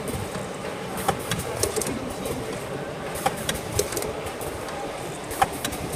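HPD 250 single-pad wet wipe packing machine running: a steady mechanical noise with sharp clicks every second or two.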